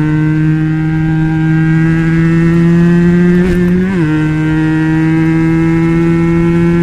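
Benelli BN302's 300 cc parallel-twin engine running at held revs through an Arrow exhaust with the dB killer fitted, its pitch creeping slowly upward. There is a brief wobble and a small dip in pitch about four seconds in, after which it climbs steadily again.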